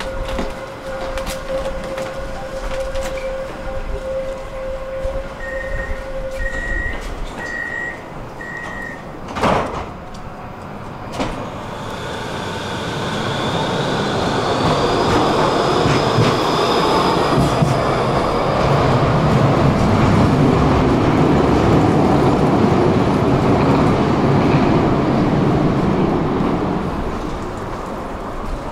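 Tram door warning: a steady tone, then four short high beeps, and the doors shut with a thud about nine seconds in. The tram then pulls away past the platform, its electric motors giving a rising whine as the rumble of the car and its wheels builds to a peak and then eases off.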